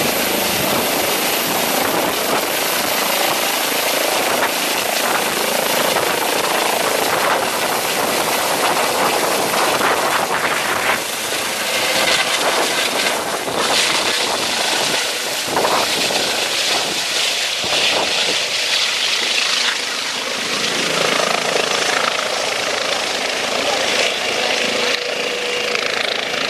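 Eurocopter EC135 twin-turbine helicopter taking off and flying low overhead: a loud, steady din of turbine whine and rotor noise.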